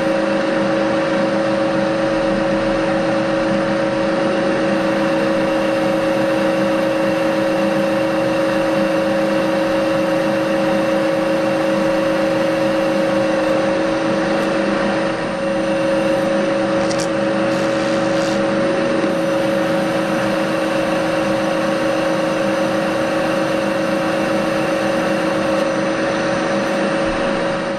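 Bridgeport milling machine running steadily with a drill in its chuck boring a grub-screw hole into a metal bush. It gives an even, pitched mechanical hum.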